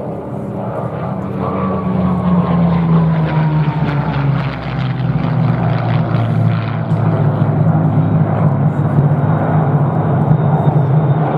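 Massed Spitfire and Hurricane formation, its many piston engines making a steady deep drone that grows louder as the formation approaches. In the first few seconds a single aircraft passes with a falling engine note.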